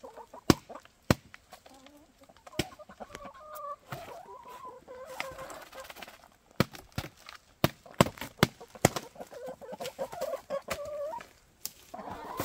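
Chickens clucking in short, bending calls, with scattered sharp clicks and crinkles as foil pouches are handled in a cardboard box.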